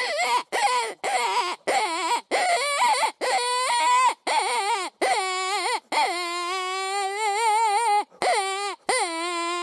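A predator call sounding a string of whining, wavering distress cries to lure in a wolf: short cries about twice a second, then a long drawn-out cry of about two seconds, and another long one near the end.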